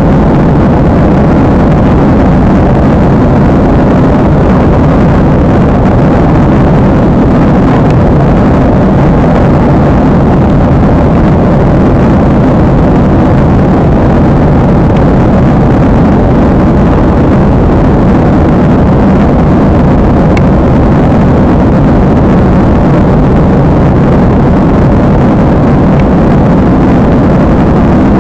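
Steady, loud jet airliner cabin noise: engine and airflow noise with no change in level.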